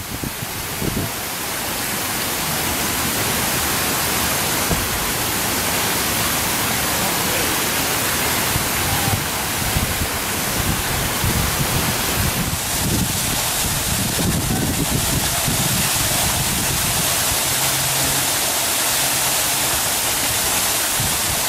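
Steady, loud rushing noise, an even hiss with uneven low rumbling underneath, like wind on the microphone or falling water.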